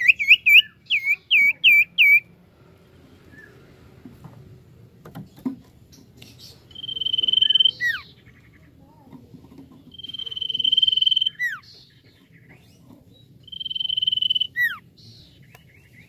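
Common iora (cipoh) singing: a quick run of about seven short chirping notes, then three long level whistles, each ending in a quick downward slur.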